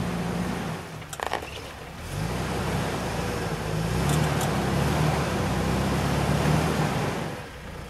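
Jeep Wrangler TJ's engine pulling at low speed as it crawls over rocks. The revs ease off briefly about a second in, then rise about two seconds in and hold steady. A couple of short sharp knocks, about a second and about four seconds in.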